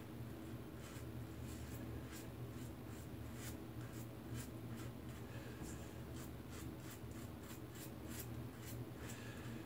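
Rockwell 6C safety razor on plate 4 with a fresh Rockwell blade scraping lathered stubble off the neck: a quick, irregular run of short, dry scratching strokes.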